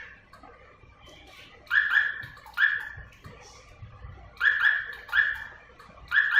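A small dog barking in short, high yaps that drop in pitch. There are about eight barks in three quick bunches.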